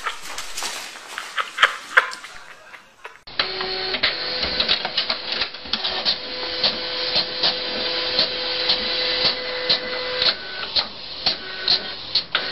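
A small machine running, with a steady hum and regular clicks about twice a second, starting abruptly about three seconds in after a few scattered clicks and knocks.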